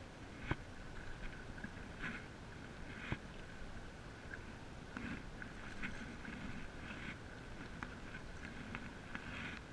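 Stand-up paddle strokes: the blade sloshing through the water and dripping in repeated splashy bursts over a low wind rumble, with a couple of sharp knocks about half a second and three seconds in.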